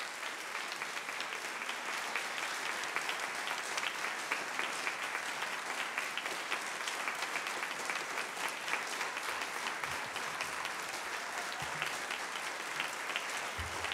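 Congregation applauding, a steady spread of many hands clapping.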